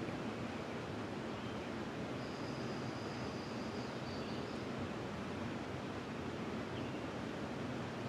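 River water running with a steady rushing hiss. About two seconds in, a bird gives one long, thin high whistle lasting a couple of seconds, and there are a few faint short chirps around it.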